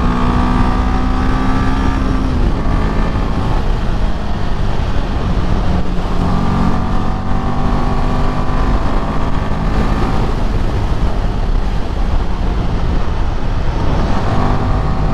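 Royal Enfield Himalayan 450's single-cylinder engine running under way, its note fading and coming back twice as the throttle comes off and on through the bends, under heavy wind rumble on the microphone.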